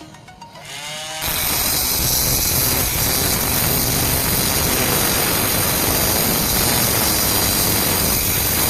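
Homemade angle grinder built from a DC motor with a PVC shaft connector: the motor winds up over about the first second, then runs loud and steady until it stops at the very end.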